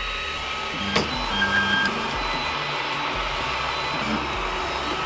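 Creality Ender 3D printer's stepper motors whining as the print head and bed move, the tones shifting in pitch as the moves change, with a sharp click about a second in and a short high tone just after.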